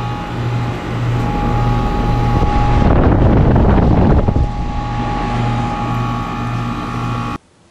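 A 2008 Goodman GSC13 13 SEER air-conditioner condensing unit running, with a low hum that throbs about twice a second under steady whining tones; the compressor sounds rough, an "angry compressor sound". A gust of wind noise comes about three seconds in, and the sound cuts off abruptly near the end.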